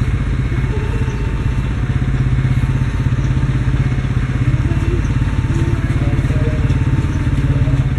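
An engine runs steadily with a fast, even pulsing rumble.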